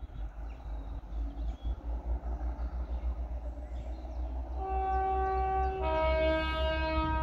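Class 17 Clayton diesel locomotive sounding its two-tone horn as it approaches, first a higher note about four and a half seconds in, then a lower note from about six seconds. A low rumble runs underneath.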